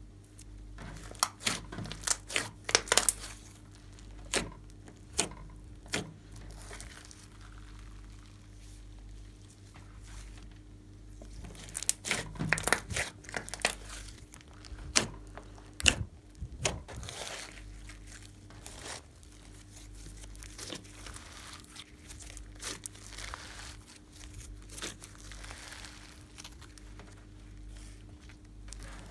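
Glossy slime being folded, pressed and stretched by hand, giving irregular sharp crackles and clicks in clusters as air trapped in the folds pops, with softer squishing between. A faint steady hum runs underneath.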